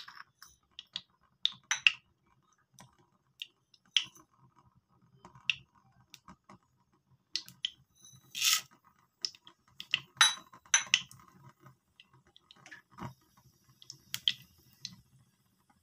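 Hot coconut oil in a non-stick pan crackling with scattered sharp pops and ticks. Mustard seeds go into the oil near the end and start to sputter.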